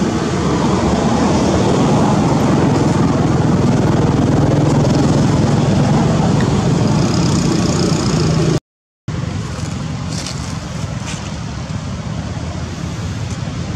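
Steady rumble of a motor vehicle engine running nearby, broken by a brief dropout about two-thirds of the way through, then continuing a little quieter.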